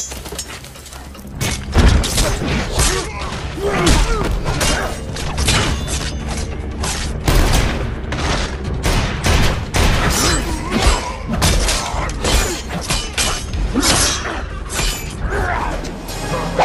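Movie fight sound effects: a rapid, dense string of punches, blows and crashes, starting about two seconds in, over a music score.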